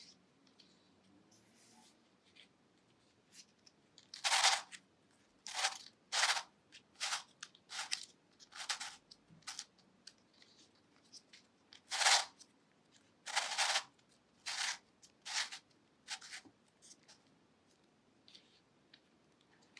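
A 3D-printed plastic twisty puzzle, a Ripple Dodecahedron, being turned by hand: its plastic pieces make short scraping clicks as the faces twist. About a dozen turns come at irregular spacing after a few quiet seconds.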